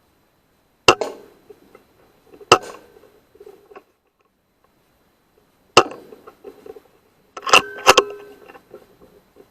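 Weihrauch HW100 .22 air rifle being fired and handled: a series of sharp clicks and knocks, with two close together near the end followed by a brief metallic ring.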